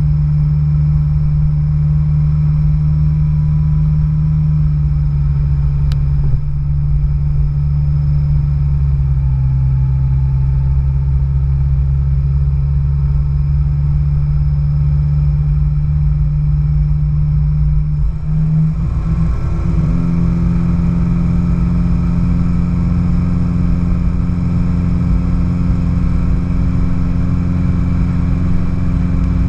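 Car engine running steadily at low parade speed, its pitch shifting slightly a few times. About eighteen seconds in it dips briefly, as at a gear change, then runs fuller and a little louder.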